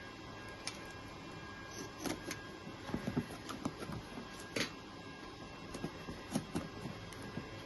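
Packaging being handled: a scattering of short clicks, taps and rustles as a box and its contents are opened and moved, over a steady low hum.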